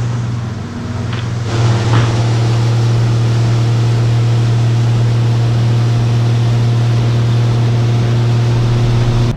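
Farm machinery running steadily with a loud, deep hum, as corn is unloaded at the grain dryer. About a second and a half in it gets louder and fuller, as a rushing noise joins the hum.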